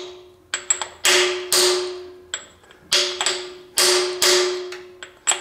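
Hammer blows on a socket used as a driver, seating a steel freeze plug into a cast-iron engine block: sharp metallic hard strikes in ones and twos with lighter taps between, each ringing out for about half a second.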